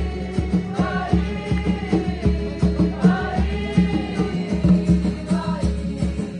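Group singing a chant-like song in unison, several voices together over a steady, evenly repeating low beat.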